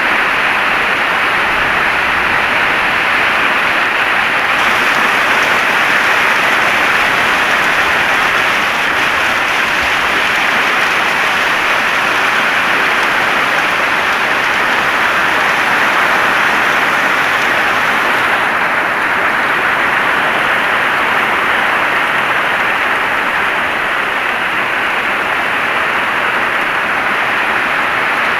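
Heavy rain falling steadily in a dense, even hiss, a little brighter from about five seconds in until about eighteen seconds in.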